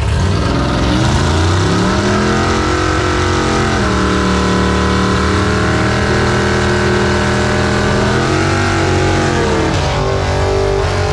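Drag car's engine revved up and held at high revs through a burnout, its rear tyres spinning. The revs climb over the first few seconds, hold steady, dip briefly about eight seconds in, then pick up again.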